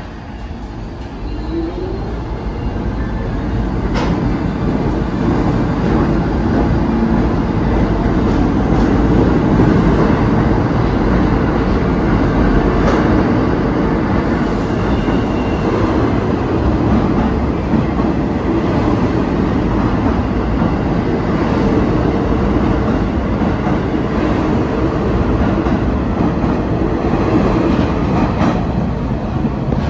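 New York City subway train pulling out of the station: a short rising motor whine as it starts off, then a loud, steady rumble of the cars rolling along the platform.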